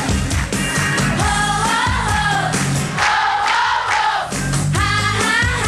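Pop song: a woman singing lead over a steady drum beat.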